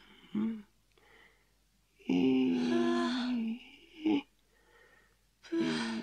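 Voice-acted snoring of a sleeping cartoon character: a short breath just after the start, one long drawn-out snore about two seconds in, a brief one near four seconds, and another snore starting near the end.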